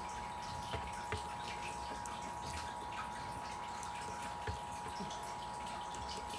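Faint handling of a plastic action figure and its cloth camouflage uniform: a few small clicks and rustles over a steady high hum and hiss.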